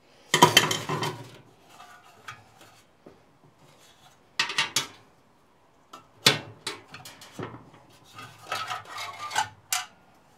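Sheet-metal parts of a Suburban RV furnace's blower housing clinking and clattering as they are handled and taken apart, in four short spells of rattling with quiet gaps between.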